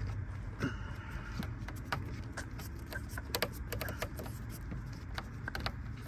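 Irregular small clicks and scrapes of a screwdriver working at the plastic ignition switch housing on a car's steering column, over a steady low hum.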